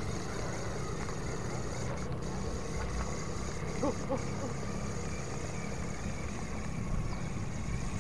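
Steady low rumble of outdoor background noise with no clear single source, and a couple of faint brief pitched sounds about four seconds in.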